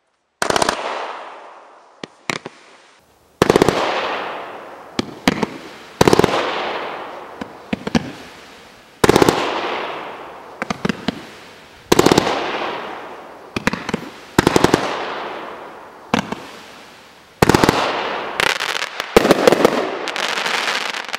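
Soaring Eagle 'Haunted Honeymoon' 30-shot fan cake firing. Volleys of sharp reports come every two to three seconds, some in quick clusters of several shots, each followed by a long fading tail of noise.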